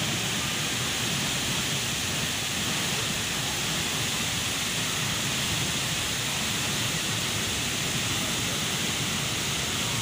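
A tall waterfall pouring down a rock cliff into its plunge pool: a steady, unbroken rush of falling water.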